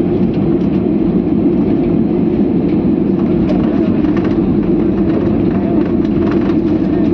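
Steady low rumble of a moving vehicle, with faint voices and small scattered clicks.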